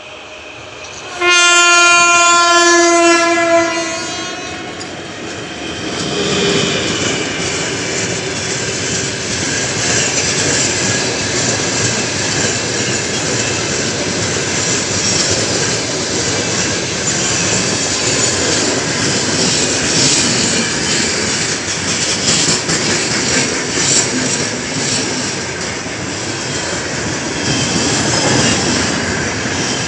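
Horn of a 3ES5K 'Ermak' electric freight locomotive sounding one loud blast of about two seconds, a second or so in. Then a long freight train rolls past close by, with wagon wheels clattering steadily over the rail joints.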